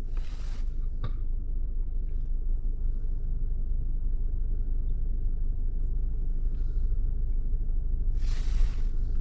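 Steady low rumble of a parked car's engine idling, heard from inside the cabin. A short hiss comes right at the start and another about eight seconds in.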